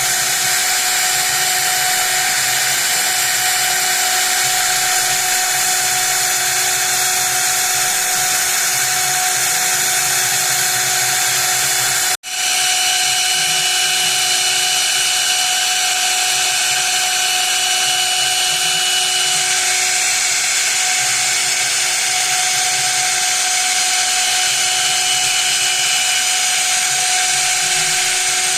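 High-speed spindle of a CNC machine running steadily with a constant whine as it machines a printed circuit board. The sound cuts out for an instant about twelve seconds in, then carries on unchanged.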